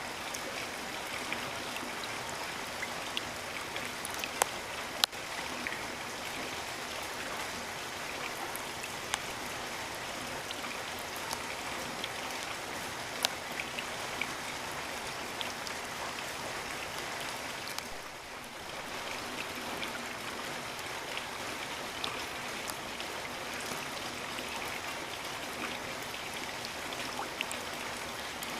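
Steady rain: a dense, even hiss with scattered sharp drops hitting. The sound dips briefly about two-thirds of the way through.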